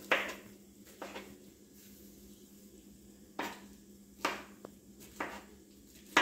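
Kitchen knife cutting through pineapple and knocking on a wooden chopping board: about seven sharp, irregularly spaced chops, the strongest at the very start and near the end.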